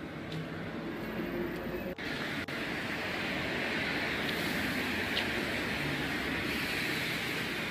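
Steady city street noise of passing traffic. It changes abruptly about two seconds in and becomes brighter and hissier.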